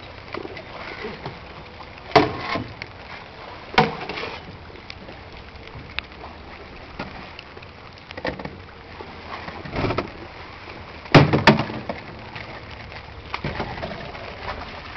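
Small boat in floodwater knocking about: a low water-and-hull background with a few sharp knocks, the loudest a close pair about eleven seconds in.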